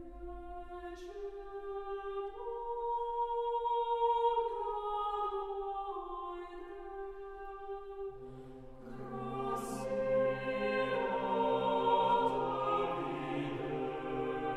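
A cappella chamber choir singing slow, sustained chords that move in steps. The upper voices sing alone at first; about eight seconds in the low voices enter and the chord swells fuller and louder.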